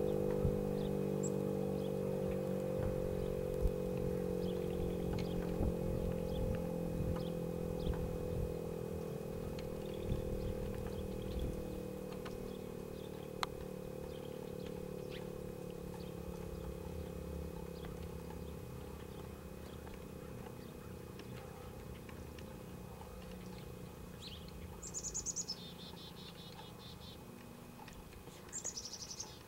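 Federal Signal Model 7 outdoor warning siren winding down after a test, its tone slowly falling in pitch and fading. Birds chirp twice near the end.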